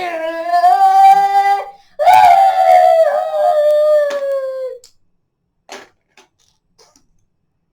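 A child's voice making two long, drawn-out sound effects for his toy battle: the first held steady, the second sliding down in pitch. A few light clicks follow.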